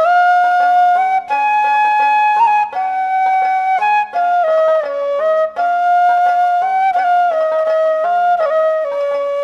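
Background music: a flute melody of held notes over a repeating low accompaniment.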